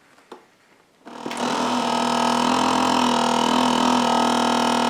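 Countertop vacuum sealer running a second cycle on a bag, done to make sure the seal holds: its pump motor starts about a second in and runs with a steady hum.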